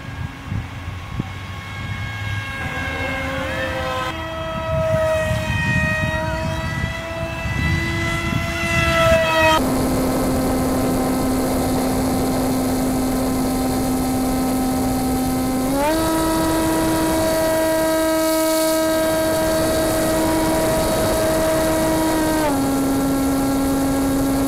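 Electric motor and propeller of a foam RCPowers F-22 RC jet in flight, a pitched whine that wavers and glides in pitch as it flies. About ten seconds in it turns steady with a windy hiss behind it, then steps up in pitch with more throttle around sixteen seconds and drops back near the end.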